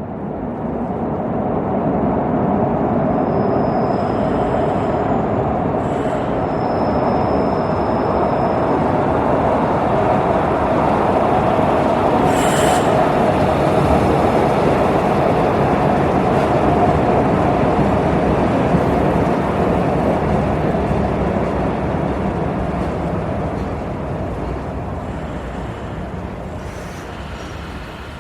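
Metro train running on its rails: a steady, loud rumble of wheels and running gear that swells up at the start and fades away near the end. Two brief high squeals come about four and seven seconds in, and a sharp click about twelve seconds in.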